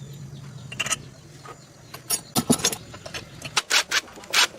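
Short, sharp metallic clinks and knocks of tools and engine parts being handled, over a low steady hum that stops about three and a half seconds in.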